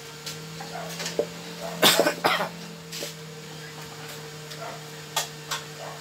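Microwave oven with a newly replaced high-voltage transformer starting to heat, its steady low hum setting in at once as the transformer and magnetron are powered. About two seconds in come a few short, loud bursts of noise, and there are scattered light clicks.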